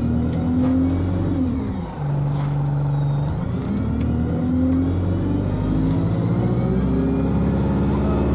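Alexander Dennis Enviro 200 single-deck bus engine revving hard under acceleration. The engine note climbs, falls away at a gear change a couple of seconds in, then climbs again and holds high, with a high-pitched whine rising above it.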